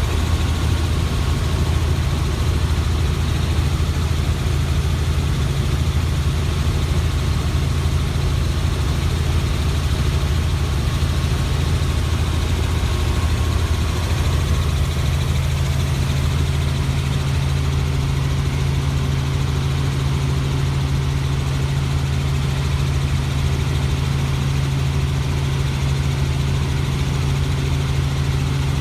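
Helicopter running, a loud, steady low drone of engine and rotor, with a slight shift in its low hum about halfway through.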